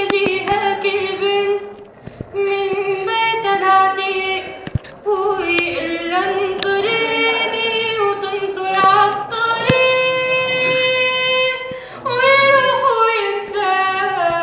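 A woman singing an ornamented melody in Arabic, her voice sliding and trilling between notes, with one long held note about ten seconds in.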